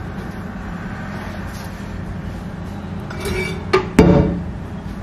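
Crockery clinking twice in quick succession about four seconds in, the second knock the louder with a brief ring, over a steady low hum.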